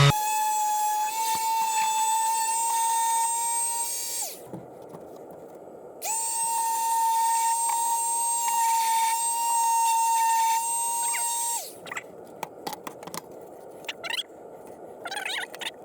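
Ryobi battery palm sander switched on twice, running with a steady whine for about four seconds, then, after a short pause, for about five and a half seconds. Each run starts with a slight rise in pitch as the motor comes up to speed and cuts off sharply. Light clicks and scrapes of handling follow.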